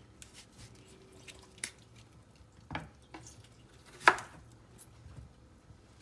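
A chef's knife cutting cucumber and knocking on a wooden cutting board as the seeds are cut out: a few separate sharp knocks, the loudest about four seconds in.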